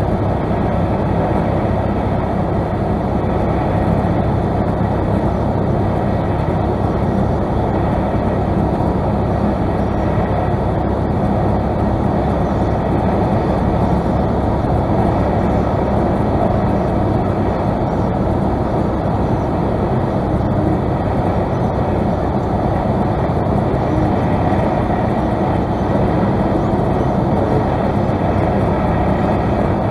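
Steady engine and airflow noise inside the cockpit of a single-engine light airplane gliding with the engine throttled back to idle for a power-off landing.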